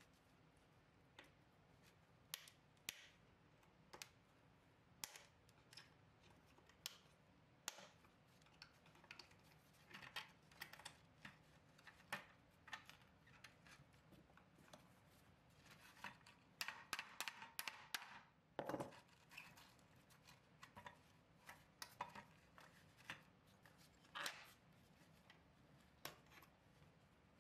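Small steel pins and brackets of a toy trailer's wooden floor board being worked loose by hand with a pick tool: scattered light metallic clicks and taps, with a quick run of clicks about two-thirds of the way through.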